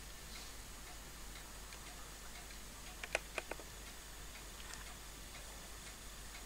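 Faint ticking over a low steady hum, with a quick run of three or four sharper clicks about three seconds in.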